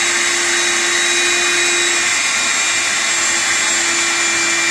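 Electric meat mincer running steadily with a constant motor hum and whine as chopped onion is pushed through it.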